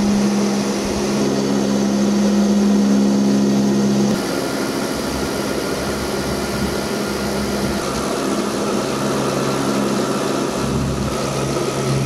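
Steady drone of a propeller airliner's engines heard from inside the cabin. A strong low hum sits under it for the first four seconds, then drops out abruptly, leaving a rougher, hissier drone.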